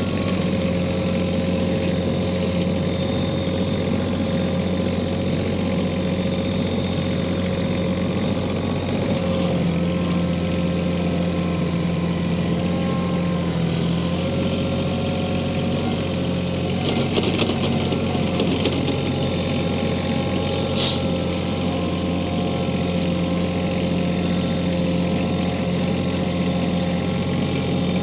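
Kioti CK4010 compact tractor's diesel engine running steadily as the tractor drives back and forth with its front loader, with a short rattle a little past the middle.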